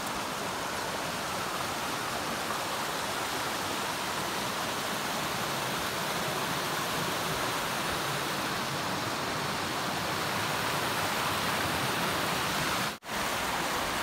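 Steady rush of a mountain stream tumbling over rock, dropping out for an instant near the end.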